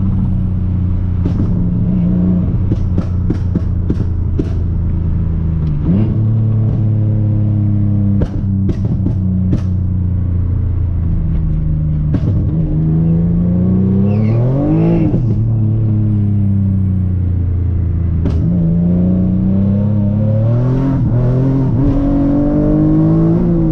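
Nissan Maxima's 3.5-litre V6, swapped to a six-speed manual, heard from inside the cabin. It runs steadily at first, then revs up hard about halfway through, drops sharply at a gear change, and climbs again near the end. A scattering of sharp clicks comes over the engine in the first ten seconds.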